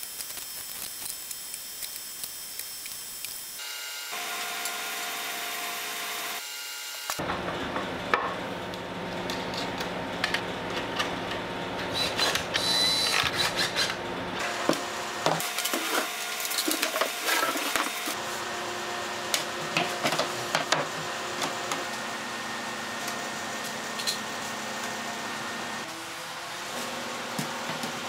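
Workshop assembly sounds: a cordless drill running in short bursts, with wooden parts knocking and clicking as the frame is put together and clamped. A steady machine hum sits underneath and shifts abruptly several times.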